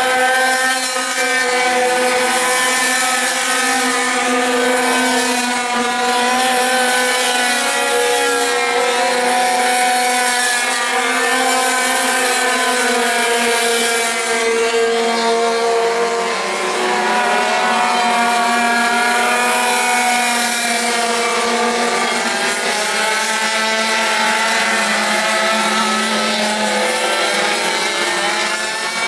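Several pocket-bike engines racing at once, their overlapping high-pitched whines rising and falling as the bikes accelerate out of corners and slow into them.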